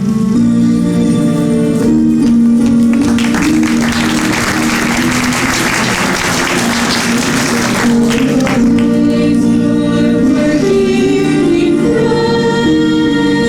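Stage music with voices singing sustained notes. About three seconds in, a burst of applause rises over it for some five seconds and dies away while the music goes on.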